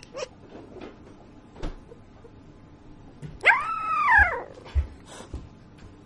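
Puppy whimpering in its sleep: a short yip just at the start, then in the middle a long whine of about a second that rises and then falls in pitch.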